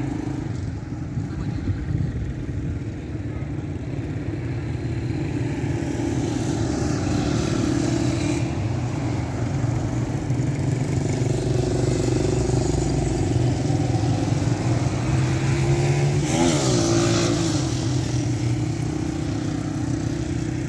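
Twin turboprop engines of a PIA ATR airliner running as it rolls out on the runway after touchdown, a steady engine hum that grows louder toward the middle. A short wavering sweep in pitch comes about sixteen seconds in.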